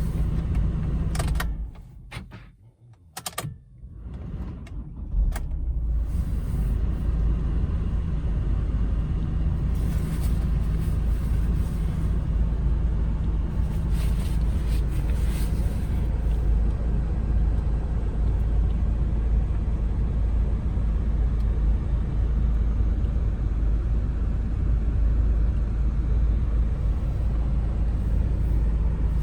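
Strong wind rumbling and buffeting against the microphone in a windstorm, a steady deep roar. It drops away briefly with a few clicks about two seconds in, then returns.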